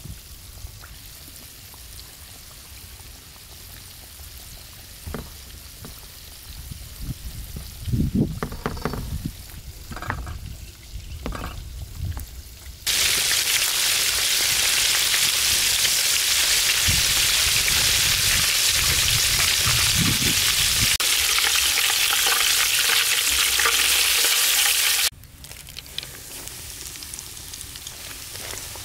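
Chicken drumsticks pressed and rubbed in a tray of flour, with soft thuds. Then a loud, steady sizzle of drumsticks deep-frying in hot oil in a steel wok starts suddenly near the middle, runs about twelve seconds, and cuts off. A quieter sizzle follows as more floured drumsticks go into the oil.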